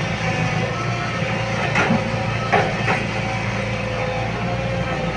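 Hitachi Zaxis 110 excavator's diesel engine running steadily with a constant hydraulic whine. A few short knocks come near the middle.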